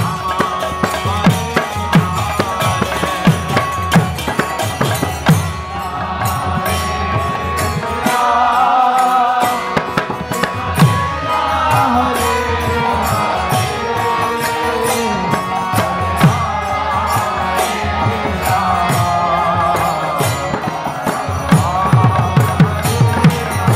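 Kirtan music: a sung devotional chant over hand drum and small percussion. The drum falls away about eight seconds in and comes back strongly near the end.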